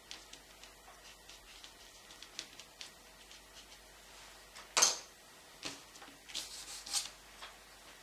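Light ticking taps of a paintbrush dabbing oil paint onto the painting, then a sharp knock about five seconds in, followed by a short run of clicks and scrapes.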